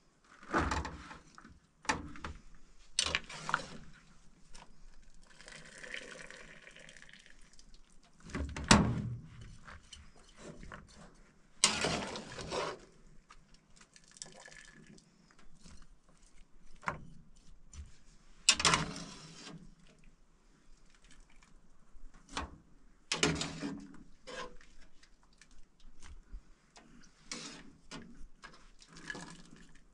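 Wet vegetable strips scooped from a steel cooking pot with a metal slotted spoon and dropped into a plastic bowl: water dripping and splashing, broken by several sharp clanks and scrapes of the spoon against the pot.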